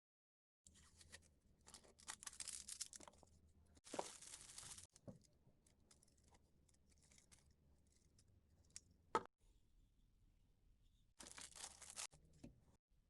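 Faint, irregular rustling and tearing handling noises in bursts, with one sharp click about nine seconds in.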